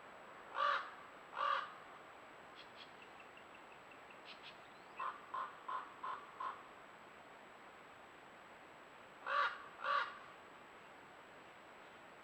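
A crow cawing. Two loud caws come about a second in, then a run of five short, quicker notes a little past the middle, and two more caws near the end. Faint high bird notes sound in between.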